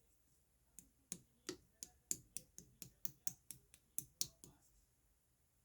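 Purple clear slime being pressed and worked by hand, giving a run of sharp little clicks and pops, about four a second, which stop about four and a half seconds in.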